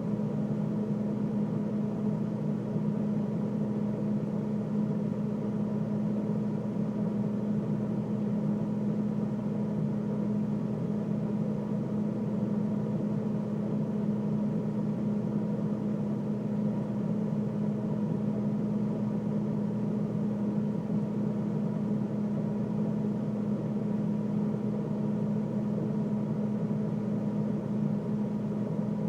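A freezer running: a steady, unchanging mechanical hum with one strong low tone.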